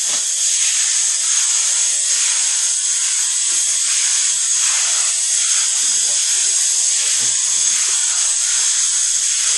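Two-part spray foam gun spraying, a steady high hiss of foam and air leaving the nozzle.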